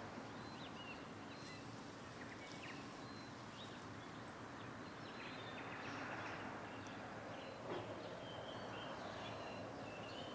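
Faint outdoor morning ambience: scattered short bird calls over a steady low background hum, with one brief knock about three-quarters of the way through.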